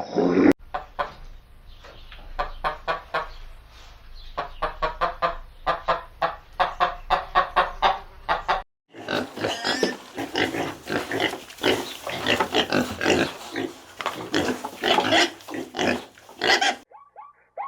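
Pigs grunting in a long run of short, quick grunts. The grunting breaks off briefly about nine seconds in, then carries on busier and more crowded.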